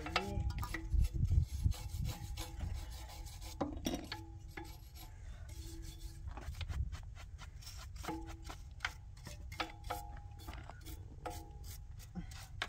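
Hand rubbing and rasping at a window's metal frame, with scattered light clicks and knocks.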